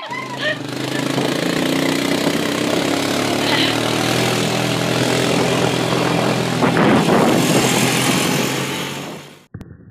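A motor vehicle engine running steadily under a heavy rush of noise, cutting off abruptly near the end.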